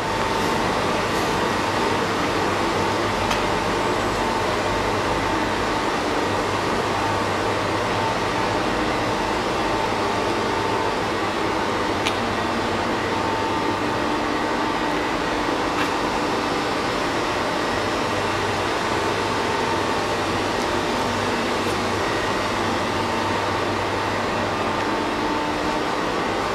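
Steady machine-hall hum, an even mechanical drone with a few held tones, such as running ventilation or machinery, with a few faint clicks.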